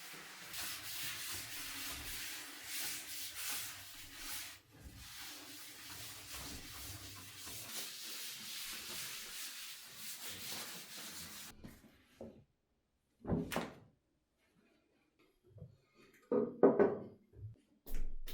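Bathroom floor being washed: steady wet wiping and rubbing for about eleven seconds. It then stops, followed by a few separate knocks as objects are set down, the loudest near the end.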